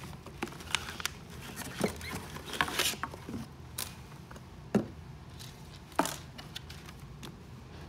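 Handling noise as a foil moisture-barrier bag and cardboard boxes are moved about on a tabletop: irregular crinkles and rustles with a few sharp knocks, the two loudest in the second half.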